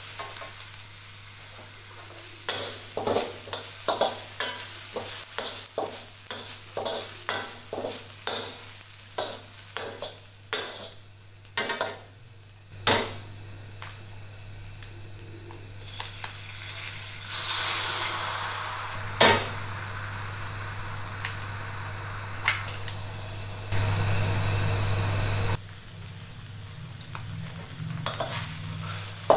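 Metal wok spatula scraping and clattering against a wok as diced garlic and onion fry in sizzling oil, with rapid strokes at first. Partway through, eggs are cracked into the wok with a few sharp knocks and sizzle in the oil, then are scrambled with more scraping. A brief steady hum comes in near the end.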